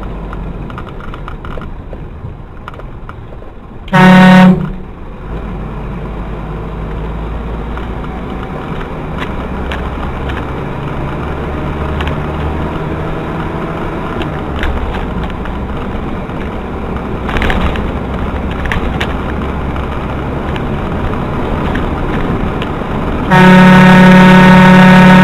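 Vehicle horn sounding very loudly: a short blast about four seconds in and a long held blast starting near the end, over steady road and engine noise.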